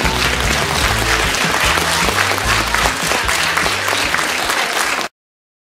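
Audience applauding over music with a steady bass line. Both cut off abruptly about five seconds in.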